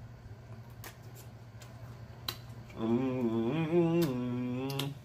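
A man's drawn-out 'mmm' moan of enjoyment while eating chicken wings, starting about three seconds in and lasting nearly two seconds at a low, fairly steady pitch with a slight rise and fall. A few sharp lip-smacking clicks come before it.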